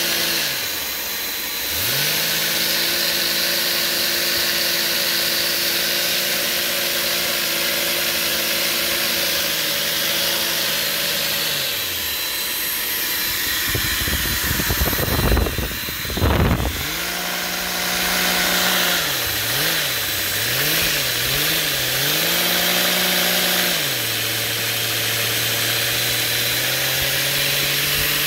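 Vacuum-driven Lego single-piston engine with a belt-driven 3D-printed twin-screw roots-style supercharger running over a steady hiss of rushing air. Its hum holds a steady pitch and then fades, and a short burst of loud rattling and knocking comes about halfway. The engine then revs up and down several times on its throttle blades and settles to a lower, steady idle.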